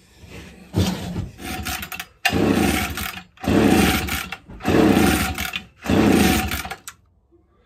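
Homelite 360 two-stroke chainsaw being pull-started: a short pull about a second in, then four long pulls on the recoil starter, about a second each, the engine cranking over without firing because its ignition switch is still off.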